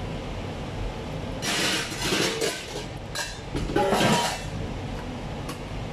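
Stainless steel kitchen pan and mesh strainer clinking and scraping as they are handled, in a few clattering bursts between about one and a half and four and a half seconds in, over a steady low background hum.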